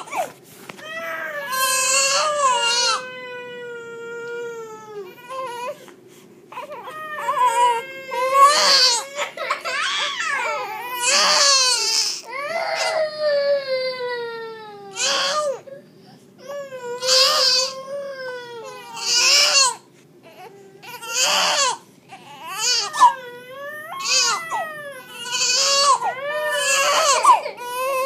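A toddler girl and a newborn baby crying and screaming at the same time: repeated high-pitched wails every second or two, with a few long, falling cries.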